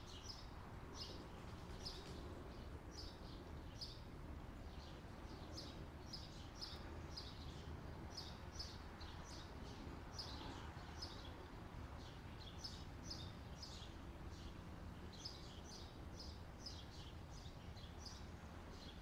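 Faint birdsong: many short, high chirps that drop in pitch, several a second in irregular runs, over a steady low rumble.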